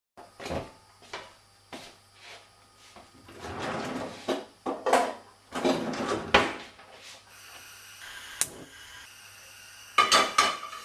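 A run of knocks, clatters and rustles of objects being handled, loudest in a busy stretch in the middle and in a quick cluster near the end, with a single sharp click a little before it. A steady low electrical hum runs underneath.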